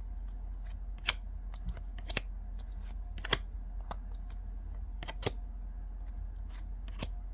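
Glossy baseball cards being flicked through one by one, each card snapping and sliding against the stack in a short crisp flick, about once a second. A steady low hum sits underneath.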